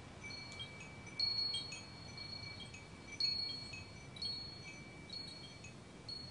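High, bell-like metal chimes ringing: two clear tones hold on, with short pings scattered between them and louder strikes about one, three and four seconds in.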